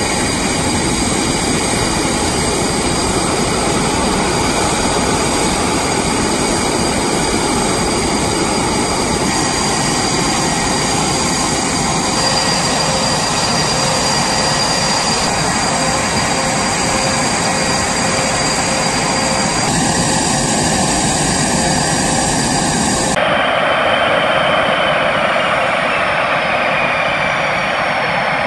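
F/A-18 Super Hornet fighter jet's twin General Electric F414 turbofans running on the ground, a loud steady roar with a high whine over it. About 23 seconds in it changes abruptly to another jet, whose high whine glides down and up in pitch as the jet taxis.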